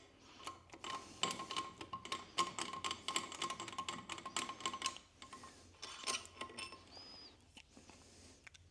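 Ratchet wrench clicking quickly as a cylinder head bolt is backed out: a fast run of small clicks for about four seconds, then a few scattered clicks near the end.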